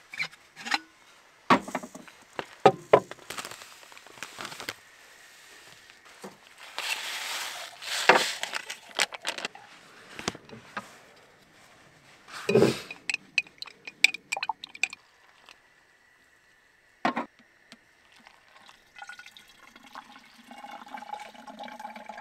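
Breakfast being made on a camp tailgate kitchen: scattered clicks and knocks of utensils and gear, a fork clinking in a glass mason jar as eggs are beaten, and liquid pouring. A faint steady high tone runs through the second half.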